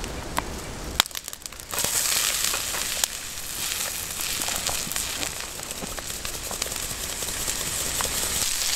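Oil and potato peels sizzling and crackling in a hand-forged carbon-steel pan, the sizzle starting up abruptly just under two seconds in, after a single sharp click. The pan is being seasoned (burned in) to build its first patina.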